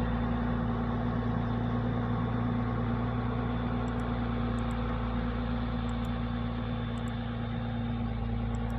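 Diesel engine of a large articulated four-wheel-drive farm tractor running at a steady speed as the tractor drives slowly across the yard.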